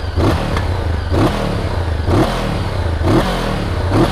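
Honda CBR500R parallel-twin engine revved at standstill, the throttle blipped about once a second so the revs rise and fall five times over the steady idle.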